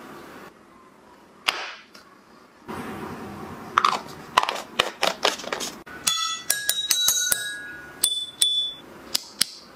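Light clicks and knocks of a plastic lid being pressed onto a small cup. From about six seconds in comes a quick series of glass clinks, each ringing briefly at a clear pitch.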